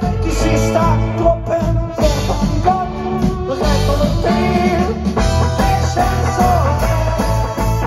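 Live rock band playing loudly, with electric guitars, keyboard and drums, heard from within the audience.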